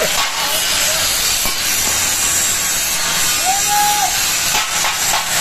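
Handheld electric angle grinder running its abrasive disc against the steel bars of a welded iron window grill frame, a steady, loud grinding hiss as the disc bites into the metal and throws sparks.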